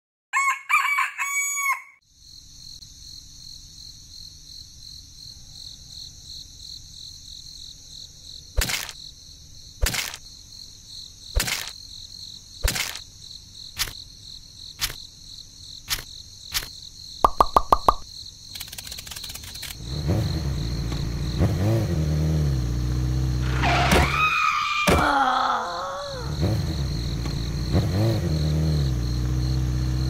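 A rooster crows briefly at the start. Then a series of sharp clicks comes about once a second over a faint steady high background. From about two-thirds of the way in, a motorcycle engine takes over, revving up and down.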